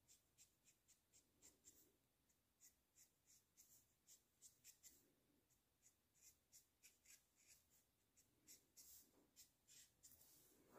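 Faint, quick strokes of a Copic alcohol marker on paper: short scratchy swishes, about two or three a second, as the red colour is flicked on in small strokes.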